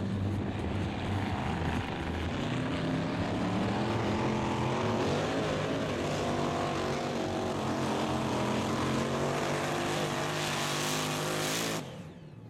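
Supercharged engine of a mini class pulling tractor at full throttle under load as it drags the sled, its pitch climbing over the first few seconds and then holding high. The sound drops away sharply near the end.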